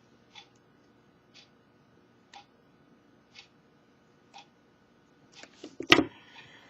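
A clock ticking steadily about once a second. Near the end come a few small clicks and one sharper click, from small parts being handled.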